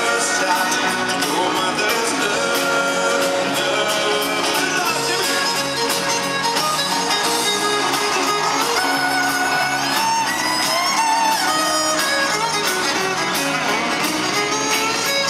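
Country band playing live, with fiddle and guitar and some singing.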